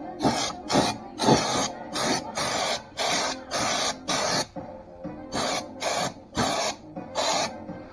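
Underseal being sprayed onto a car's wheel arches in a dozen or so short hissing bursts, about two a second, with a brief pause midway, over background music.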